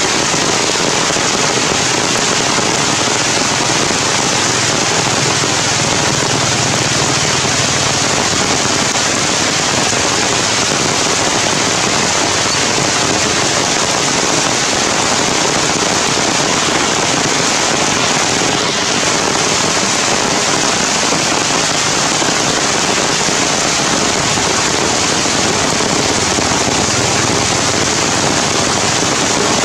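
Heavy rain falling steadily on forest leaves, a dense unbroken hiss.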